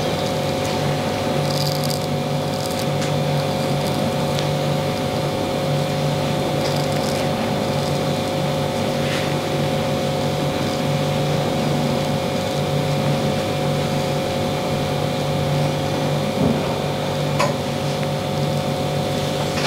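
Steady machine hum throughout, with a few faint short scrapes of a straight razor shaving stubble off the cheek and jaw.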